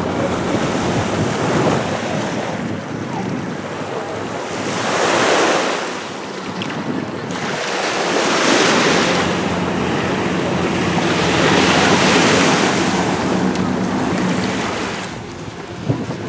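Steady rush of wind and surf on an open beach, swelling and easing every few seconds, with wind buffeting the microphone. A couple of sharp clicks near the end.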